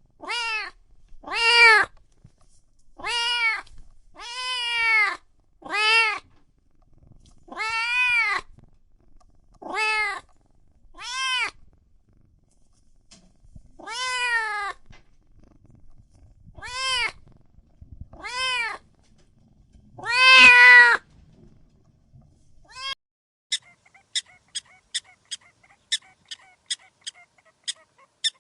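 Domestic cat meowing repeatedly: about a dozen separate meows, each rising and falling in pitch, one to three seconds apart, the last one the longest and loudest. After a short pause, a quick run of sharp, evenly spaced clicks starts near the end, about two or three a second.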